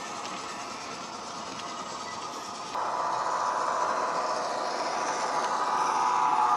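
Model diesel locomotive's DCC sound decoder playing an EMD 8-645 diesel engine under power through the model's small speaker. The engine sound jumps louder about three seconds in and keeps growing louder.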